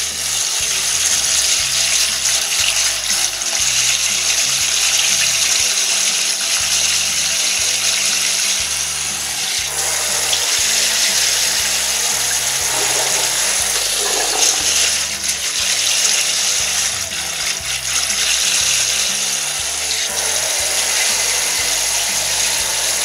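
Water running and splashing into a stainless steel sink as glutinous rice is rinsed in a metal bowl, with the cloudy rinse water poured off into the sink. It is a steady, even rush.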